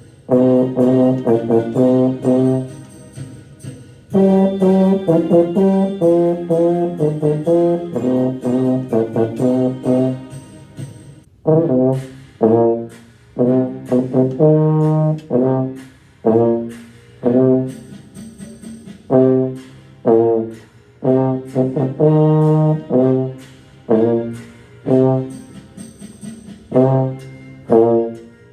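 Trombone playing the low brass part of a blues band piece: smoothly connected phrases for about the first eleven seconds, then short, detached notes with brief gaps between them.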